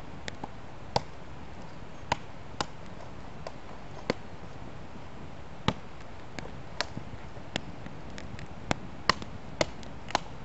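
Wood campfire crackling: sharp pops and snaps at uneven intervals, roughly one every half second to second, over a steady low hiss.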